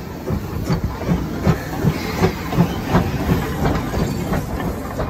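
Steam-hauled train running, with a regular beat about three times a second over a steady rumble and hiss.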